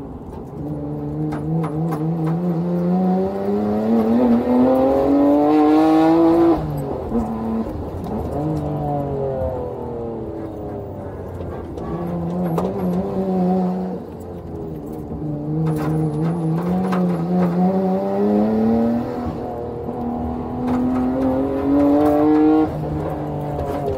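Nissan Skyline R33 GT-R's twin-turbo RB26DETT straight-six heard from inside the cabin under hard acceleration: the revs climb steadily for about six seconds and cut off sharply as the throttle is lifted, run lower with small rises and dips, then climb in a second long pull that cuts off sharply near the end.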